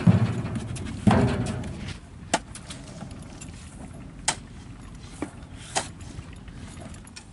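Horses shifting their weight on a pickup truck's bed, two heavy thumps in the first two seconds. Four sharp metallic clanks follow, spread over the next few seconds, from the truck's tailgate being worked by hand.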